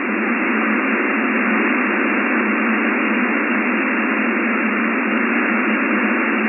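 Shortwave radio receiver on an HF air-traffic control channel, giving steady static hiss between transmissions. The hiss is squeezed into a thin, telephone-like band.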